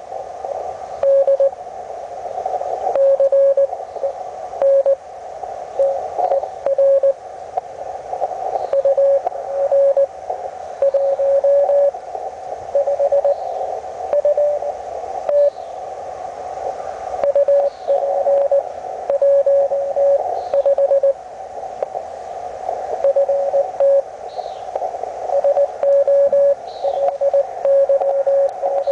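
Morse code from a Hendricks PFR-3A QRP transceiver: a single mid-pitched tone keyed on and off in dots and dashes over a narrow band of receiver hiss, the audio of a low-power CW contact.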